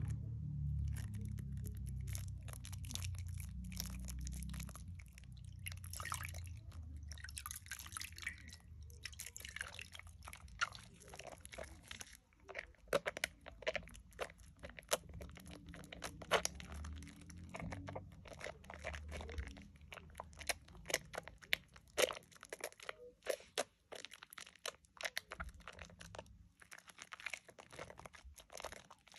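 Wet hands working a bar of Dove shea butter soap into thick lather, squeezing and rubbing the foam: a continuous run of quick wet crackles and squelching clicks, with a low rumble of handling during the first several seconds.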